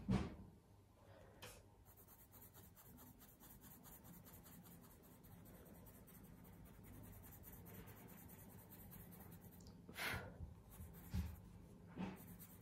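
Coloured pencil scratching faintly across cartridge drawing paper in quick, repeated strokes, pressed hard to blend the colour in. A few louder soft bumps come near the end.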